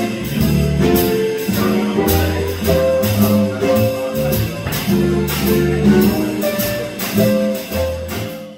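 Live jazz combo playing: a double bass plucks low notes under a melody line, with cymbal strokes keeping time.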